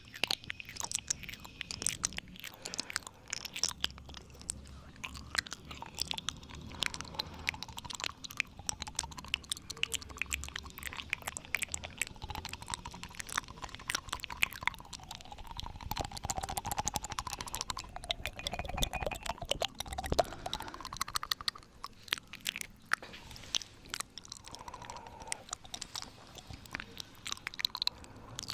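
ASMR 'ear eating' mouth sounds: rapid, irregular clicking and smacking of lips and tongue.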